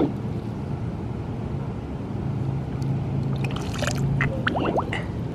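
Water gurgling and trickling around a rubber chicken squeeze toy held under pool water and then lifted out, with a couple of short rising gurgles a little after four seconds in. A low steady hum runs underneath.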